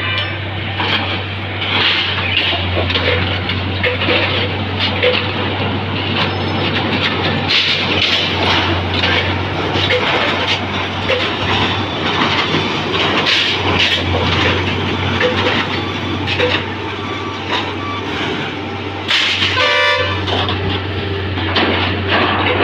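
Harsco track-renewal machine working on the railway line: a steady diesel drone with many knocks and rattles of the machinery. A short horn toot sounds about nineteen seconds in.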